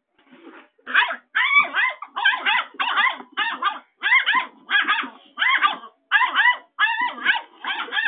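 A puppy barking angrily at a cardboard box: a steady run of high-pitched barks, about two a second, starting softly and then loud from about a second in.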